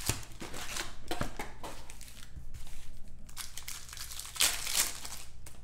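Foil packs of Panini Prizm Fast Break basketball cards being torn open and their wrappers crinkled, in irregular rustles that are loudest near the end.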